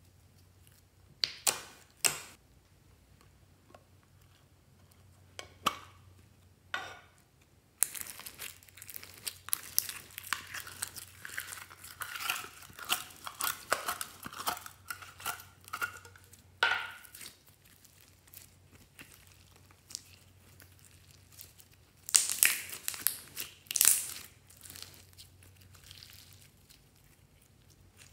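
Hands squeezing slime and scraping it out of a container: scattered wet pops and squelches. In the middle comes a long stretch of dense crackling and squishing, and near the end a few louder squelches.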